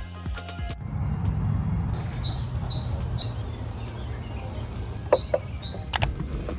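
Background music cuts off under a second in, giving way to a steady low rumble with short high bird chirps repeating every few tenths of a second, and a couple of sharp clicks near the end.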